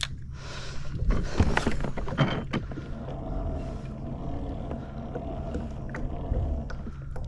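Water sloshing and knocking against a fishing kayak's hull, with a cluster of sharp knocks about one to two seconds in, over a low steady rumble.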